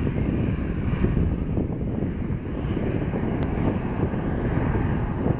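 Boeing 737-300's two CFM56-3B1 turbofan engines running steadily at low taxi thrust as the airliner turns and lines up on the runway, a continuous jet noise heavy in the low end.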